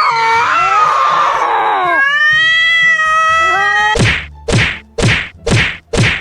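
Cat yowling in long drawn-out cries, then five short sharp sounds about two a second.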